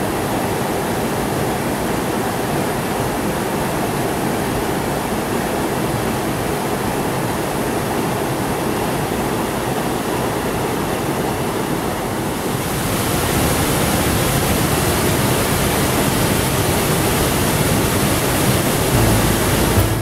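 Rushing water of a stream tumbling over a small cascade, a steady rush that grows louder and hissier about twelve seconds in.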